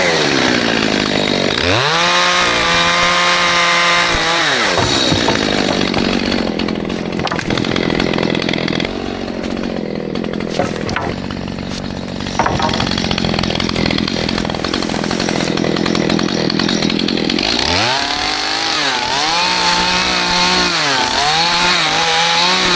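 Stihl MS211 two-stroke chainsaw revving up and down, then running at full throttle under load for about twelve seconds as it cuts through wood, then revving up and down again near the end.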